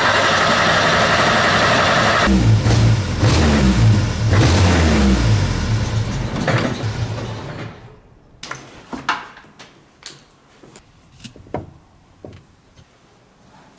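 Renault 4's small four-cylinder engine running and being revved, its pitch rising and falling several times, then dying away about eight seconds in. After that come only scattered light clicks and knocks.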